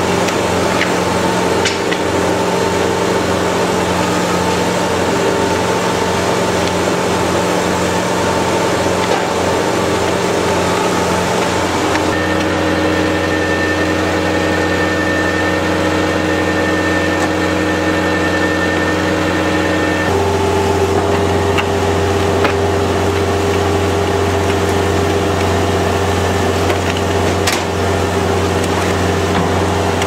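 Bobcat skid-steer loader's engine running steadily while it powers a hydraulic concrete mixer bucket. The pitch of the hum changes abruptly twice, about twelve and twenty seconds in.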